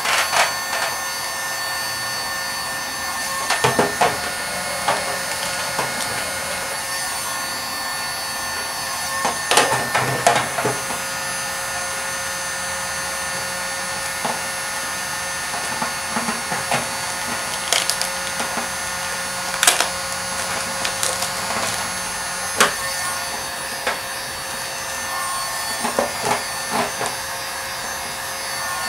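Electric heat gun running with a steady fan whir, while vinyl wrap film is stretched and rubbed by hand, crinkling and crackling in short bursts every few seconds.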